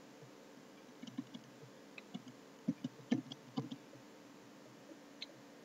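Faint computer keyboard keystrokes: an uneven run of clicks lasting about three seconds, then one more keystroke near the end.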